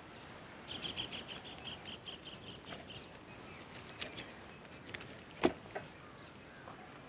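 A bird chirping in a quick run of short high notes, about five a second, for a little over two seconds. A single sharp knock comes later.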